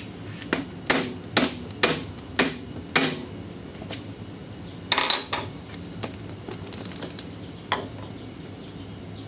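Hammer striking the top of a 4-inch PVC pipe, six sharp blows about half a second apart, driving the tight-fitting pipe down over a fitting. About five seconds in comes a brief ringing clatter, and a lighter knock follows near the end.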